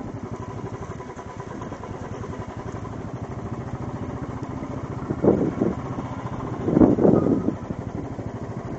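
A motor vehicle engine running steadily with a fast, even pulse, with two louder swells about five and seven seconds in.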